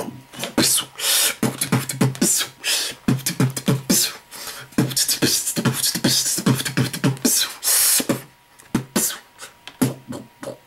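Dubstep-style beatboxing into a handheld microphone: a fast run of mouth-made kick and snare hits and hissing hi-hat sounds. It goes briefly quieter about eight seconds in, then picks up again.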